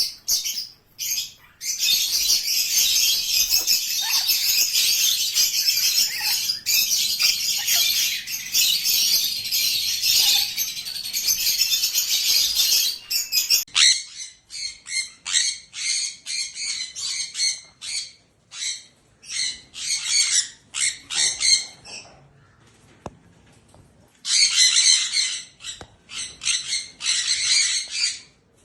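A flock of small pet parrots chattering and chirping: a dense, continuous high-pitched chatter for about the first half, breaking into quick runs of separate short chirps, with a dense burst of chatter again near the end.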